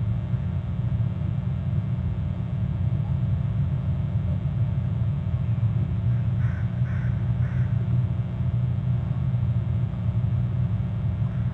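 A steady low rumble, with three short bird calls in quick succession a little past the middle.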